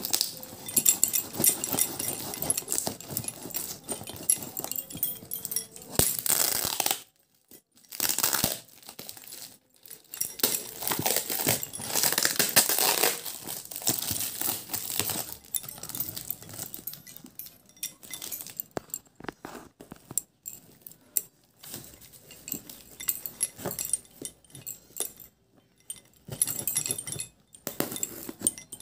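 Layers of packing tape being torn and peeled off a taped, plastic-wrapped cardboard parcel, with crinkling of the plastic. It comes in irregular bursts broken by short pauses.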